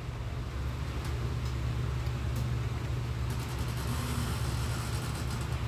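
Steady low hum under an even wash of background noise from a boxing arena.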